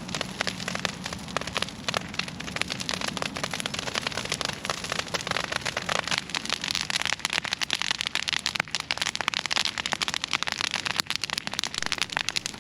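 A bush burning in an open fire, its branches crackling and popping in a dense, rapid run of sharp snaps.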